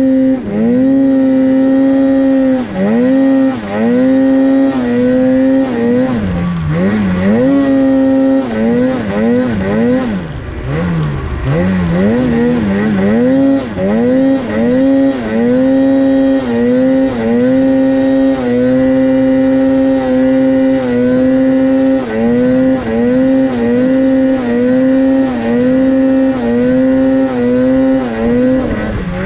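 Mountain snowmobile engine held at a steady high pitch under throttle in deep snow. It dips and climbs back every second or two as the rider lets off and gets back on the throttle. A few seconds in, the revs sag lower and waver for several seconds before rising back to the steady pitch.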